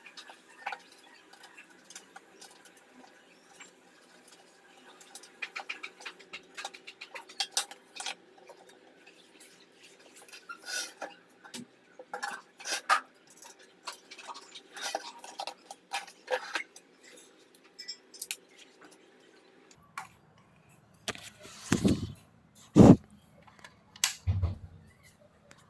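Irregular clicks and clinks of hard objects being handled, with a few louder knocks about 21 to 24 seconds in. A faint steady hum stops about 20 seconds in.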